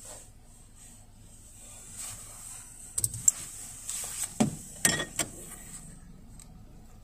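A quick run of knocks and clicks inside the car cabin: a hand handling something on the dashboard, over a faint steady hiss from the car wash spray.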